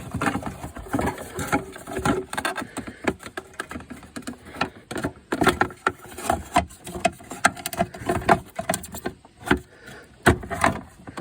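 Irregular plastic clicks, knocks and scraping of a replacement turn signal lens being slid down into its opening in the front of a car and seated.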